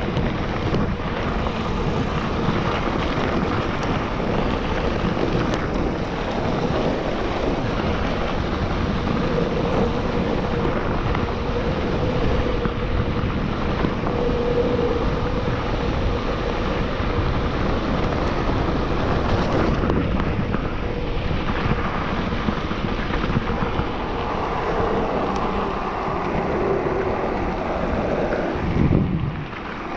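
Wind buffeting the microphone and tyres rumbling on a dirt trail as an electric mountain bike descends at speed, steady throughout, with a brief louder low rush near the end.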